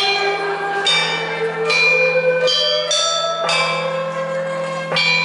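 A set of tuned bells played as a slow melody, one note struck at a time, about six strikes, each note ringing on into the next over a steady low hum.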